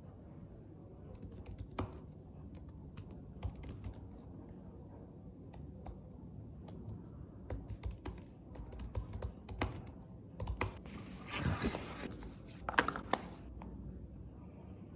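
Scattered, irregular light clicks and taps, with a few louder rustling bursts about eleven to thirteen seconds in.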